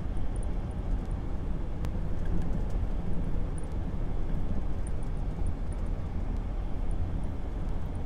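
Steady low rumble of a car driving at road speed, heard from inside the cabin: engine and tyre noise with no change in pace.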